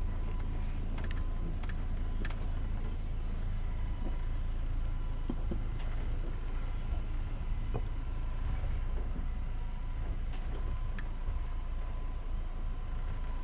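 Ford Ranger pickup crawling slowly over rocky ground, its engine running low and steady. Scattered clicks and knocks come from tyres and underbody on rock and gravel.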